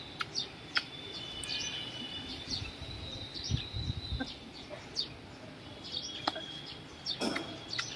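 Outdoor background with birds chirping: short high chirps and thin held notes, with scattered small clicks and a few low muffled bumps a little past the middle.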